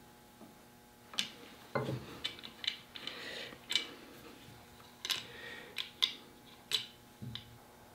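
Workbench handling sounds: a screwdriver and a double-barrel shotgun being moved about on a cloth-covered bench, giving a string of sharp clicks and light knocks of wood and metal, a short rustle, and two dull thumps, about two seconds in and near the end.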